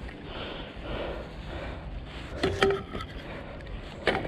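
Rustling of handling and movement, with a quick cluster of clicks and a short ringing clink about two and a half seconds in and a single sharp knock near the end.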